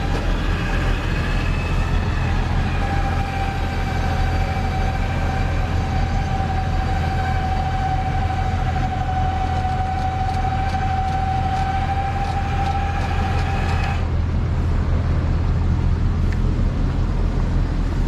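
A tow truck's winch whining steadily under load over an engine's low drone, the whine drifting slightly in pitch and cutting off suddenly about fourteen seconds in.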